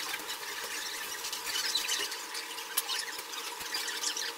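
Eating sounds: irregular small clicks and crackles from metal chopsticks against dishes and from chewing, with a faint steady high whine underneath.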